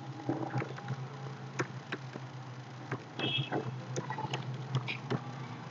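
Computer keyboard keystrokes: scattered, irregular clicks as text is typed, over a steady low hum.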